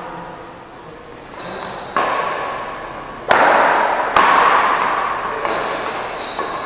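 Badminton rackets striking a shuttlecock in a rally, three or four sharp echoing hits about a second apart, with a few short high squeaks in between.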